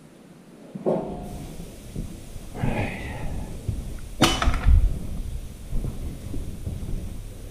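Irregular knocks and clatter of hand tools and parts during a truck engine teardown, with one sharp knock about four seconds in.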